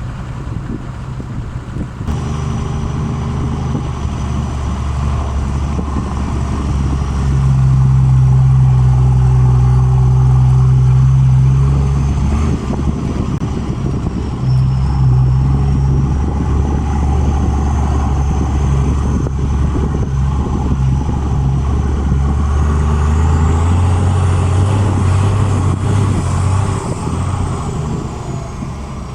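A Toyota 12H-T straight-six turbodiesel running with its exhaust note getting louder and softer as the load changes. A thin high turbo whistle sounds over it and climbs in pitch near the end.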